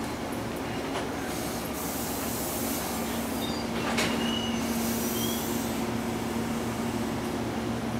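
Amtrak Northeast Regional passenger cars rolling slowly past close by, with a steady rumble of wheels on rail. A steady hum grows stronger about three seconds in, there is a single sharp click about a second later, and there are a few faint, brief high squeaks.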